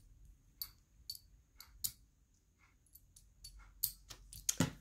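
Small metal jewelry pieces being handled: irregular light clicks and taps of metal against metal, with a few sharper clicks near the end.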